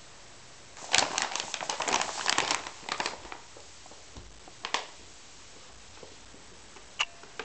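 Paper gift bag crinkling and rustling as a cat inside it scrambles and the bag tips onto its side: a busy burst of crinkles lasting about two and a half seconds, starting about a second in, then a brief rustle a little later.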